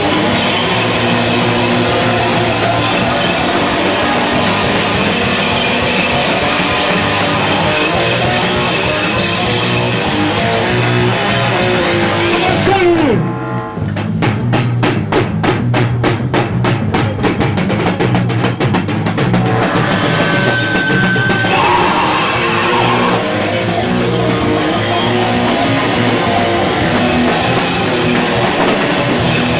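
Heavy metal band playing live: distorted electric guitar, bass and a drum kit. About 13 seconds in, the texture drops for a moment and the drums play a run of fast, evenly spaced hits for several seconds before the full band comes back.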